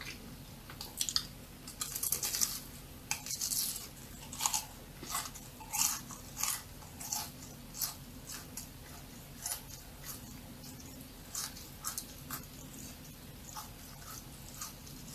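Close-miked crunchy chewing of a sugar-coated churro: dense, crisp crunches in the first few seconds, then steady chews about twice a second that grow sparser and softer toward the end.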